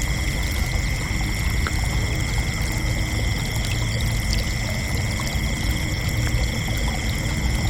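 Chorus of crickets trilling continuously, several steady high-pitched trills layered at different pitches, over a low steady rumble.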